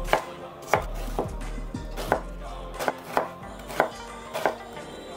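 Kitchen knife chopping pear slices into chunks on a wooden cutting board: sharp knocks of the blade hitting the board, roughly every half second to second.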